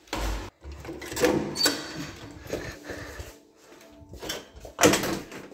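Footsteps up tiled stairs and the rubbing of a handheld phone, then a door being opened, with a sharp knock near the end.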